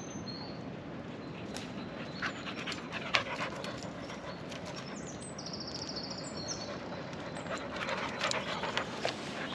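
English springer spaniel panting, growing louder towards the end as it comes right up close, with crackling and rustling of its paws on dry leaves and twigs. Birds chirp faintly in the background.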